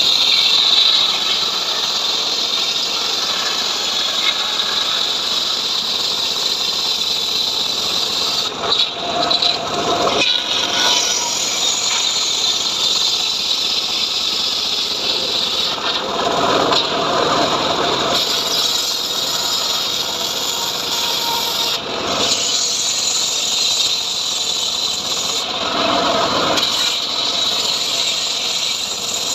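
Homemade portable sawmill running steadily, its engine-driven blade cutting through a sengon log. The sound swells louder twice, once about halfway through and again near the end.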